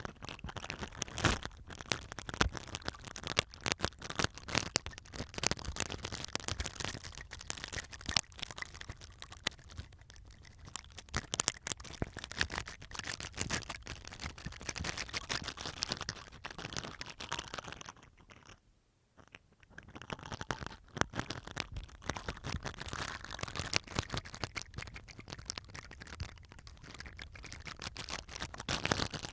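Toothbrush bristles scratching and brushing over masking tape stuck on the microphone: a dense run of crackly scratching strokes that stops briefly about two-thirds of the way through, then resumes.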